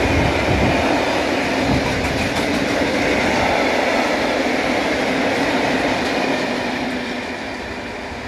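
Freight train of open coal wagons rolling past at speed, steel wheels running on the rails in a steady din. The sound fades over the last couple of seconds as the end of the train goes by and draws away.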